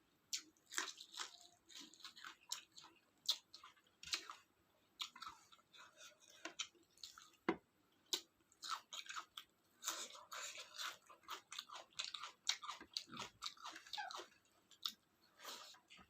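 Close-miked chewing of a meal of rice with curry and salad: irregular wet mouth smacks and short sharp clicks, several a second.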